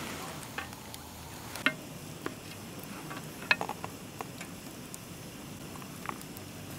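Metal ladle clinking and scraping against a cast-iron camp pot as stew is ladled out: a few sharp, scattered clinks, the loudest about a third and halfway through, over a steady low hiss.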